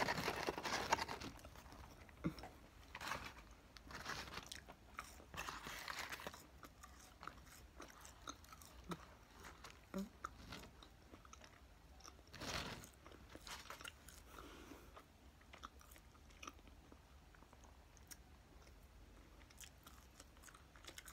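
A person eating fast food: faint chewing and biting, with scattered small clicks and a few soft rustles of the food and its packaging being handled.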